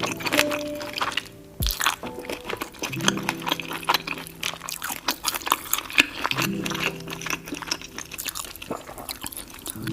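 Close-miked wet eating sounds from a saucy seafood boil: sticky smacking, squishing and slurping, with soft background music whose low sustained chords come in about every three and a half seconds.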